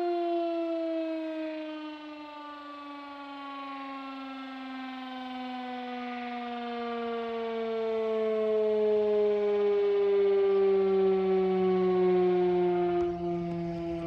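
Federal Signal Model 5 rotating outdoor warning siren sounding, one pitched wail whose pitch falls slowly and steadily as it winds down. It grows fainter, then louder in the second half as it sweeps round. It sounds a little sick, a sign of worn bearings in the recordist's view.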